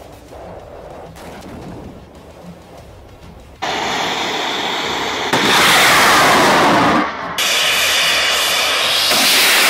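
Drones launched from ground rails by rocket boosters, twice: each launch sets off a sudden, loud rushing roar, the first about three and a half seconds in and the second just after seven seconds, and the roar sweeps as the drone climbs away. Before the first launch there is only a faint, low background.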